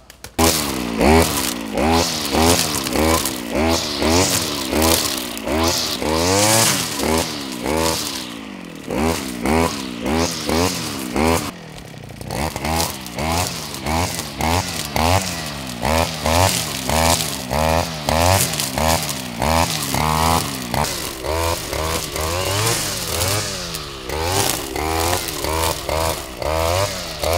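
Two-stroke gas string trimmer (brush cutter) revving up and down again and again, about twice a second, as it cuts through tall grass and weeds.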